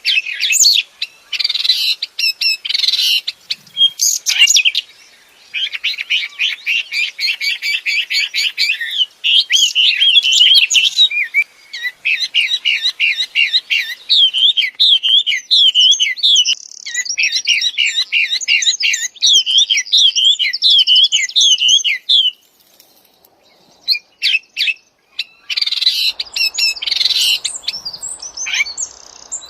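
Songbird known in Indonesia as the wambi singing continuously: fast, high, repeated trills and chattering phrases, pausing for a few seconds near the end before starting again.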